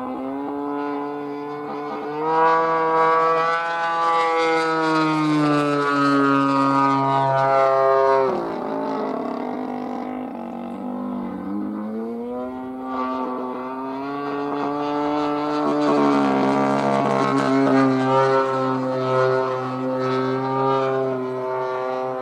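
Sachs 70cc engine of a radio-controlled CAP 580 model aerobatic plane running in flight overhead. Its pitch rises and falls with throttle and passes, drops steeply about eight seconds in, then climbs again a few seconds later.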